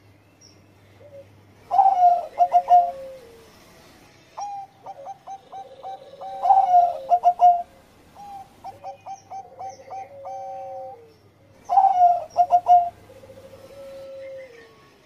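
Zebra dove (Bangkok perkutut) cooing in three bouts. Each bout is a quick run of short, clipped coos with a longer coo that slides down in pitch.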